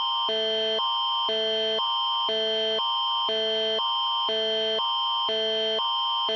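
Canadian Alert Ready emergency attention signal: a loud electronic alert tone that switches between a higher chord and a lower chord every half second, over a steady high tone.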